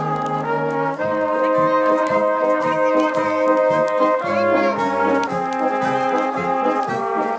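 Brass instruments playing a tune together, held chords changing every second or so.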